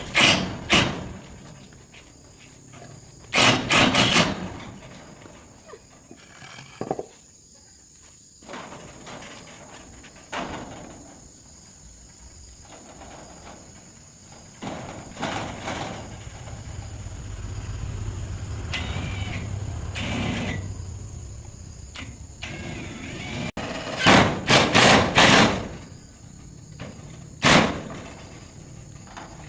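Loud knocks and bangs in short clusters of a few strokes each, with long quieter stretches between them and a low rumble in the middle. A steady high-pitched tone runs underneath.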